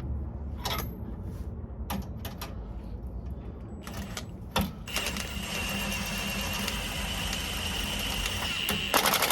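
Impact wrench running the leaf-spring U-bolt nuts down. Scattered clicks come first; about five seconds in the wrench runs steadily for some four seconds with a high whine and fast rattling strokes, louder for a moment at the end.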